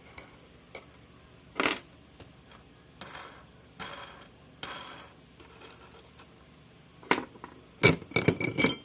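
Scattered metallic clinks and knocks as a rubber mold in its mold frame is handled and taken out of a toaster oven. A quick run of sharp, ringing clinks comes near the end.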